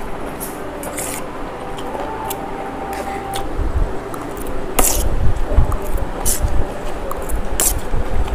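Fast, noisy eating of chow mein noodles: wet slurping and chewing, with forks clicking and scraping on the plates. Dull bumps join in from about halfway and get louder.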